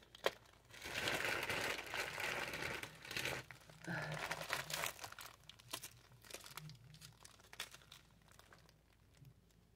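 Packaging crinkling and rustling as small items are handled, with a few sharp clicks. Loudest in the first few seconds, then fading toward the end.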